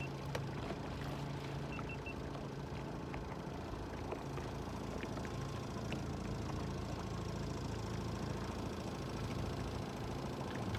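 Fishing boat's outboard motor running steadily at low trolling speed, a constant low hum.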